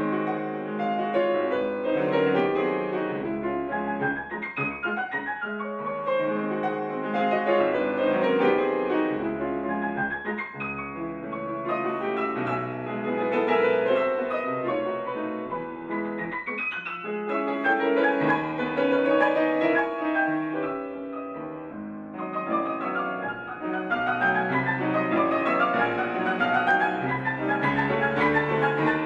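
Grand piano played solo in a dense, fast classical passage of chords and running figures, growing louder over the last several seconds.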